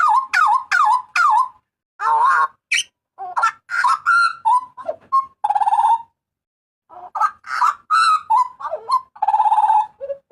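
Hooded butcherbird calling loudly: a quick run of four sharp, ringing notes, then a string of varied whistled notes broken by two harsh, buzzy calls.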